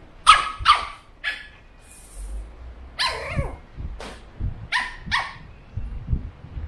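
Pug puppy barking in short, sharp barks, about six in all, with soft low knocks between them. The third bark falls in pitch.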